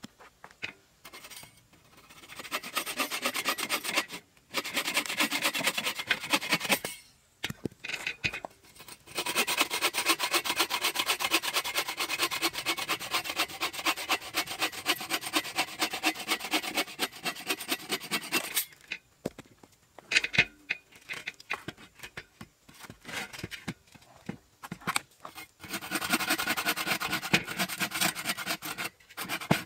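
Agawa Canyon Boreal21 folding bow saw cutting through a log in bouts of steady back-and-forth strokes, broken by short pauses.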